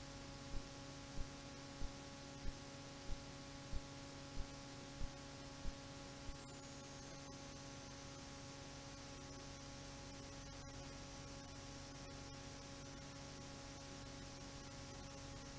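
Steady electrical hum with hiss and no music. A run of regular low thumps, about three every two seconds, stops about six seconds in.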